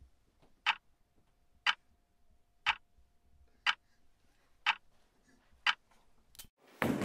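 Clock ticking, one sharp tick each second.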